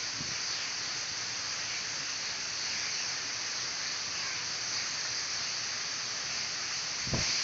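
Steady, even rush of the Misol-Ha waterfall's falling water, with a brief low thump near the end.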